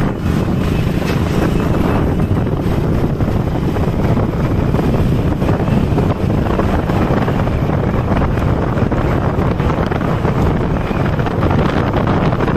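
Heavy wind rush on the microphone of a moving motorcycle, a steady low rumble with the bike's running and road noise mixed in.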